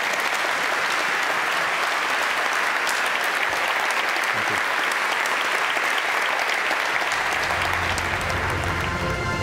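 A large audience applauding steadily, a dense, even wash of clapping hands.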